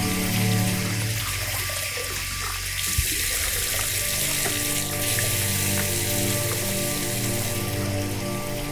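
A steady hiss of water over a low, droning film score of held tones that shift every few seconds, with a single sharp click about three seconds in.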